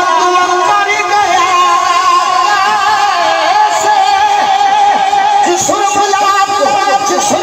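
A man singing a Punjabi naat, a devotional poem, into a microphone. He holds a long, drawn-out melodic line with wavering ornaments and no pauses.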